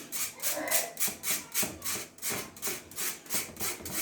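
Flour and cocoa powder being sifted through a mesh strainer: rhythmic rubbing strokes, about three or four a second.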